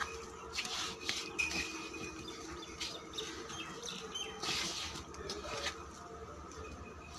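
Hands kneading and mixing a crumbly bran feed mash in a large basin: rustling, squishing strokes that come in irregular spurts.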